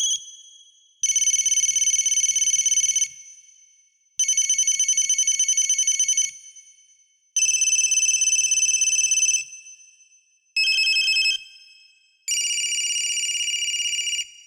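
Mobile phone ringtone: an electronic trilling ring in bursts of about two seconds with about a second's pause between them. Near the end the pattern changes to a short burst, then a longer ring at a different pitch.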